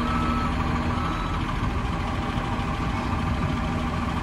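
Heavy diesel machinery engine running steadily. A backup alarm beeps at just under one-second intervals and stops about a second and a half in.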